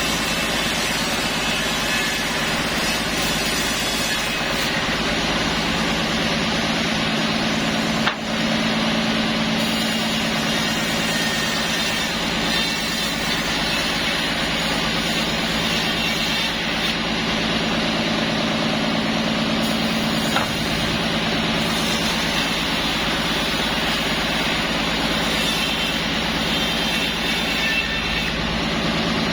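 Sawmill machinery running with a steady mechanical drone, with a single sharp knock about eight seconds in.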